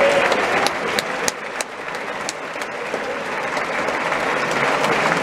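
Large theatre audience applauding at a curtain call, with sharp claps from one pair of hands close by. The applause eases slightly about a second and a half in, then builds again.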